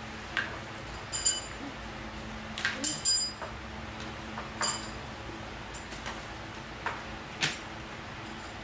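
Dishes being washed at a sink: about eight separate clinks and knocks, several with a short metallic ring, over a steady low hum.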